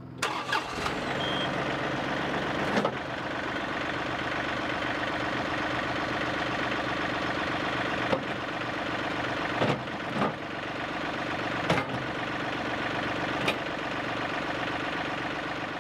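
John Deere 2038R compact tractor's three-cylinder diesel running steadily after stepping up in loudness at the start, while the 220R loader bucket is moved into position. Several sharp clunks come at intervals throughout.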